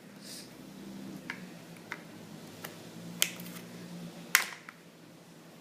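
Knife chopping potatoes on a cutting board: about six sharp, irregular knocks, the loudest about three and four seconds in.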